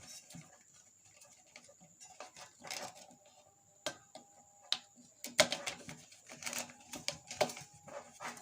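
Irregular clicks and knocks of an electric kettle's plastic cover being handled and fitted back into place, the sharpest knock about five and a half seconds in.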